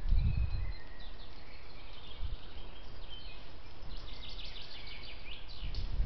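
Woodland birds singing and chirping over the steady hiss of a trail camera's microphone, with a quick run of chirps about four seconds in. Low thumps come in the first half-second and once more around two seconds in.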